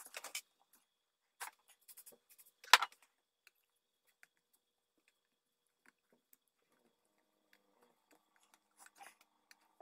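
Scattered short rubbing and scraping noises and clicks from hands working a table tennis rubber sheet off its wooden blade, with the loudest, a sharp click, about three seconds in and a few more near the end.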